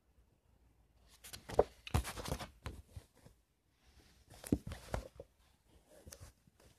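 Handling noise of a paperback book being closed and turned over: paper and cover rustling with sharp knocks, in two bursts about a second and about four seconds in, and a smaller one near the end.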